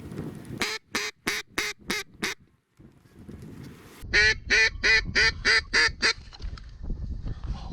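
Mallard hen quacking in two rapid, evenly spaced series: six quacks, a short pause, then seven louder ones.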